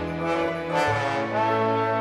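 Instrumental music: an orchestral ensemble with brass holding sustained chords, moving to a new chord just under a second in.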